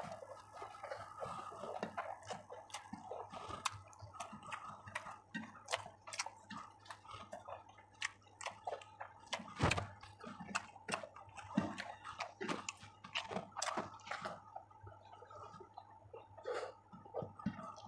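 Close-miked eating sounds of a person chewing chicken curry and rice: many quick, irregular wet clicks and smacks from the mouth.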